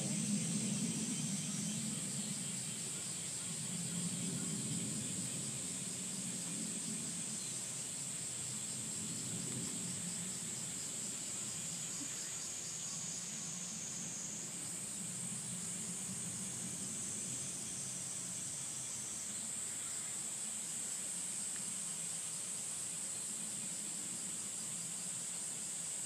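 A steady, high-pitched chorus of insects droning outdoors, its pitch stepping up slightly about halfway through, over a low background rumble.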